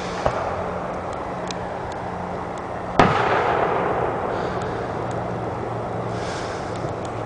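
Firework shell bursting with one loud bang about three seconds in, its boom echoing and fading over a second or two, after a smaller sharp pop near the start. A steady low engine hum runs underneath.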